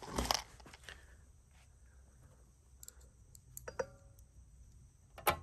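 Faint, scattered clicks and taps of small metal parts being handled while assembling a tube amplifier chassis, one followed by a brief metallic ring about four seconds in, and a sharper click near the end.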